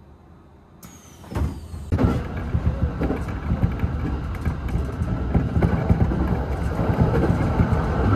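The steady rumble of an electric train running at speed, heard from inside the carriage. It rises suddenly out of quiet about a second and a half in.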